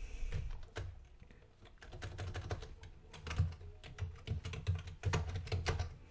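Typing on a computer keyboard: a few keystrokes, a short pause about a second in, then a quicker, irregular run of key clicks.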